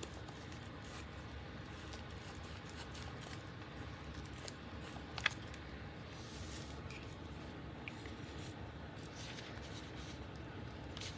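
Faint paper handling and a glue stick being rubbed over the back of a paper piece: soft scraping and rustling, with one sharp click about five seconds in.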